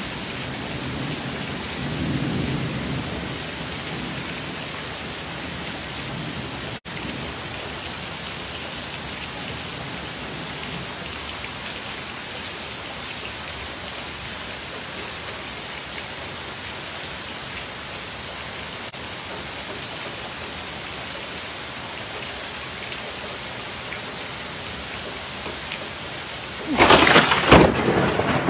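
Heavy rain pouring steadily, with thunder rumbling low in the first few seconds. Near the end, a sudden loud crash sets in and keeps going.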